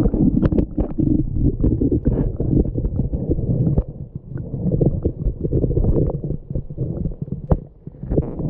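Muffled underwater bubbling and gurgling heard through a submerged action camera as air bubbles stream past it just after it plunges into a hole in lake ice, with scattered small clicks.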